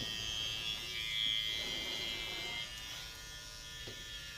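Electric hair clippers running with a steady buzz, louder for the first two and a half seconds or so and then quieter.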